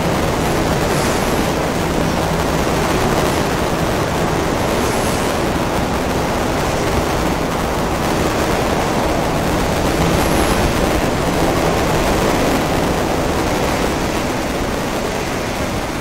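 Passenger coaches of a locomotive-hauled train rolling past a station platform: a steady rush of wheel-on-rail noise with three faint brief high squeaks, easing off as the last coach goes by near the end.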